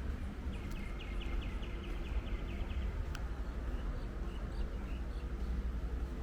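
A small bird calling: a rapid run of short high chirps, about six or seven a second, lasting about two seconds, then a few scattered chirps. A steady low rumble sits under it throughout.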